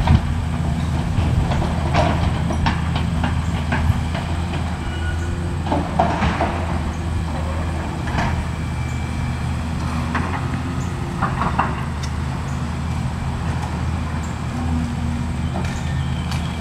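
Diesel engine of a Volvo tracked excavator running steadily as it works, with intermittent knocks and clattering of demolition debris being scooped and dumped into a dump truck.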